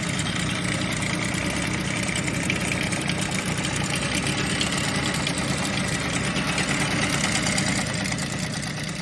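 Jawa Babetta 210 moped's small two-stroke single-cylinder engine running steadily, fading out near the end.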